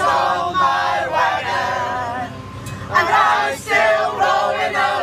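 Several men and women singing together, voices overlapping like a group singalong.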